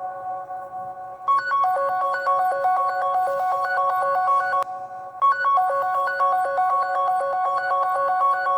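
ZTE Overture 2 phone ringtone playing: a short electronic melody of quick notes that loops, starting over about a second in and again about five seconds in.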